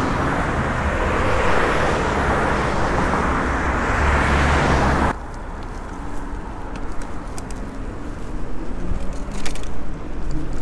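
Road traffic noise at a city junction: a steady rush of passing cars that cuts off abruptly about five seconds in. After that it is quieter, with scattered light clicks and rattles as the bicycle rolls over paving.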